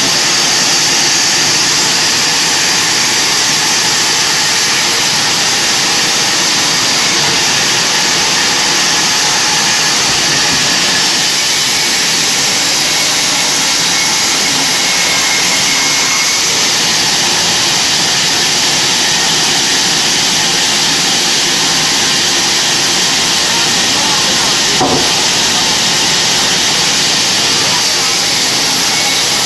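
Large sawmill band saw running and cutting lengthwise through a thick log, a steady loud hiss of the blade in the wood. One sharp click late on.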